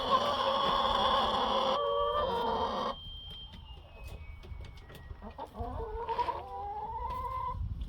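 Hens clucking and calling, loudest and densest for about the first three seconds, then quieter, with one drawn-out rising call near the end.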